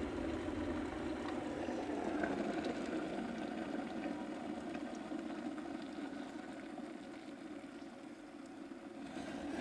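Hot coffee pouring in a steady stream from a metal pot into a ceramic mug, easing a little towards the end.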